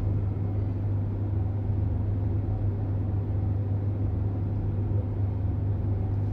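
Steady low hum of background machinery, unchanging and with no other sound standing out.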